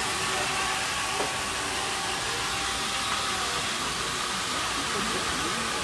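Handheld electric power tool running steadily on an ice sculpture, a constant whirring hiss with a faint steady whine, with crowd chatter underneath.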